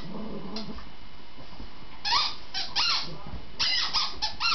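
A dog playing with a squeaky dog toy: short, high-pitched squeaks in quick clusters, starting about two seconds in.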